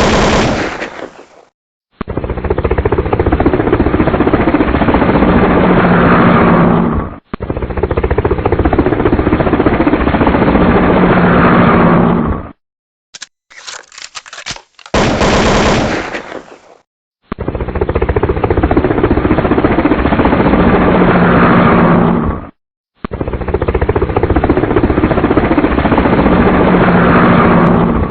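Helicopter rotor chopping in rapid, even pulses, in stretches of about five seconds that repeat almost identically with short breaks between them. Twice, near the start and about halfway, a different crackling burst fills the break.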